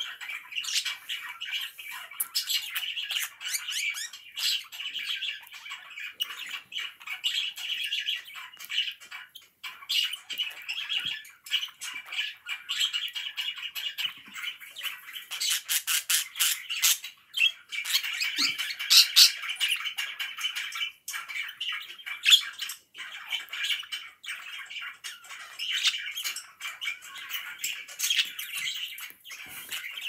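Caged pet budgerigars chattering: a steady stream of quick chirps, warbles and sharp squawks, getting louder about halfway through.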